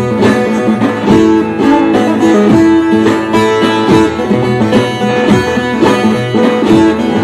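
Bağlama (saz), a long-necked Turkish lute, played solo with quick plucked strokes: an instrumental passage of a Turkish folk tune (türkü).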